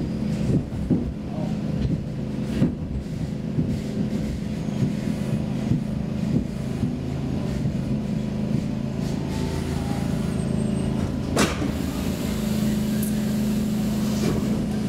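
Stockholm C6 metro train running and braking to a stop at a station: a steady low motor hum under rumble, with scattered knocks in the first few seconds and one sharp clack about eleven seconds in.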